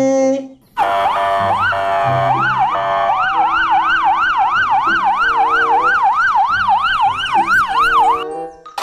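Police car siren wailing: a few slower rising-and-falling sweeps first, then a fast, even yelp of about three sweeps a second, which cuts off suddenly near the end.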